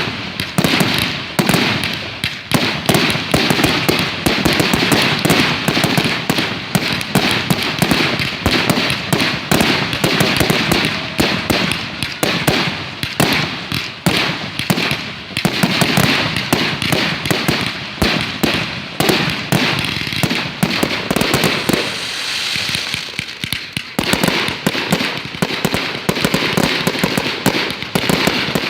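Fireworks going off in a dense, continuous barrage of rapid bangs and crackles. About 21 seconds in they thin briefly to a hiss, then the crackling picks up again.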